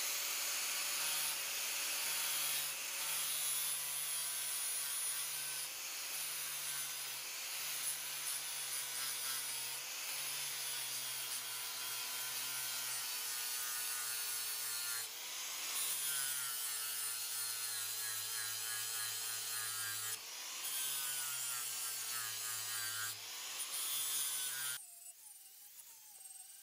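Angle grinder with an 80-grit sanding disc grinding down the steel face of a double-bit axe head, taking out rust, scratches and dings as the first-grit stage of polishing. Its motor pitch dips and recovers as the disc is pressed and swept across the metal, and the grinding stops near the end.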